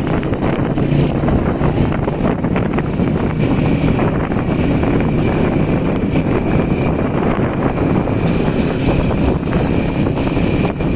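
Strong storm wind buffeting the microphone: a loud, steady rushing noise, heaviest in the low end, with no letup.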